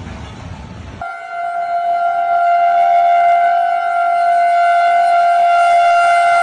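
A freight train hitting a truck trailer at a level crossing, heard as a rough rumbling noise; then, about a second in, a diesel locomotive's horn sounds one long steady blast that grows louder as the engine approaches.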